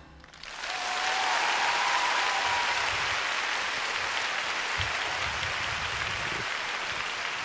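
Large arena audience applauding and cheering as a figure-skating programme ends; the music stops at the start and the applause comes in about half a second later.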